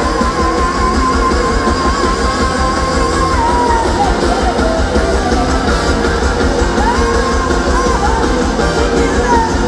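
Live rock-soul band playing: a woman's lead vocal over electric guitar and drums. A long, high held note runs through the first three seconds, with sliding notes later on.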